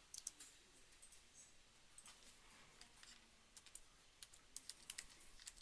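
Faint typing on a computer keyboard: irregular keystrokes that come more thickly in the second half.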